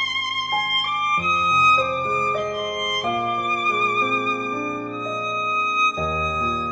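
Recorded music played through Tannoy Stirling TW loudspeakers: a violin melody of long held notes over a lower accompaniment, with deeper bass notes coming in about a second in and again near the end.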